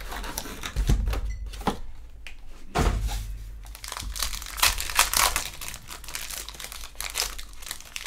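Foil trading-card pack wrappers crinkling and rustling as the packs are handled and torn open. There are two dull thumps, about one second and three seconds in.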